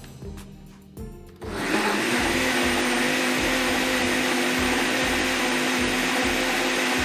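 Ninja Foodi Cold & Hot glass blender starting up about a second and a half in and then running steadily at full speed, its motor whirring with a few steady tones as it blends hot coffee with butter, MCT oil and egg yolk into a froth.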